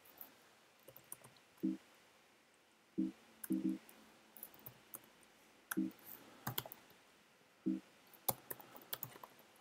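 Computer keyboard being typed on slowly and unevenly: quiet, scattered key clicks with gaps between them. Several short, low hum-like tones come between the keystrokes.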